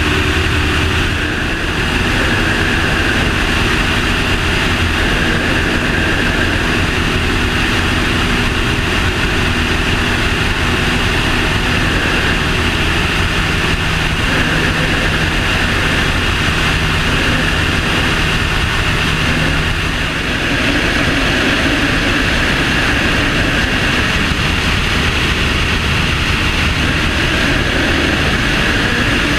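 Aircraft engine droning steadily in flight, heard from a wing-tip-mounted camera with loud rushing airflow over it; the engine note shifts slightly a couple of times.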